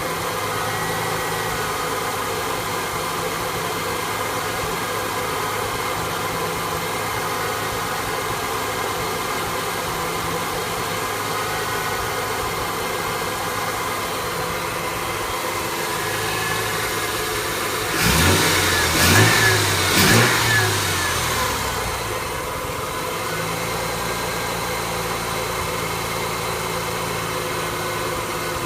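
1974 Ford F100 pickup's engine, newly converted to electronic fuel injection, idling rough, with three quick throttle revs about two-thirds of the way through before it settles back to idle.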